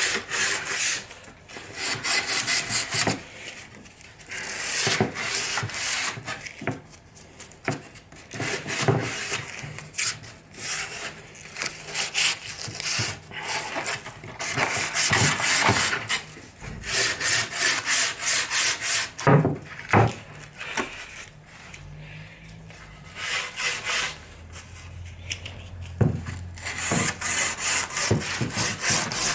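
Sandpaper rubbed by hand on a pallet-wood door frame: runs of quick back-and-forth scraping strokes with short pauses, about four strokes a second near the end, as the frame gets its final sanding before painting.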